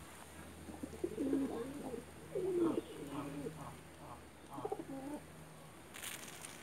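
Domestic pigeons cooing, a run of low, wavering coos from several birds between about one and five seconds in.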